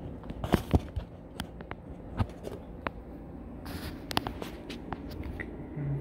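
Handling noise as a phone camera is picked up and carried in close: a run of small clicks and knocks, the loudest in the first second and another about two seconds in, with a short rustle about four seconds in.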